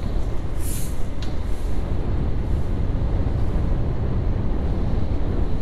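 Steady low rumble of a motorcycle ride: wind on the rider's microphone mixed with engine and road noise, with a short hiss about a second in.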